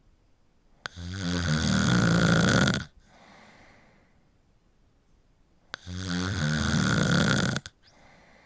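A person snoring: two loud, fluttering snores about five seconds apart, each lasting about two seconds. A much quieter breath follows each one.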